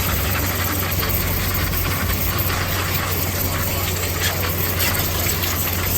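Carpet-cleaning machine's engine running steadily with a low hum, and a steady hiss over it.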